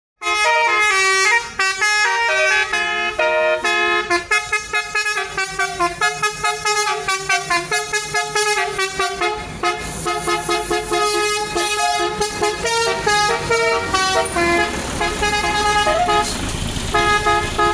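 Multi-tone telolet bus horn of the basuri type playing a fast melodious tune of stepped notes, several a second. A low rumble comes in beneath it in the last few seconds.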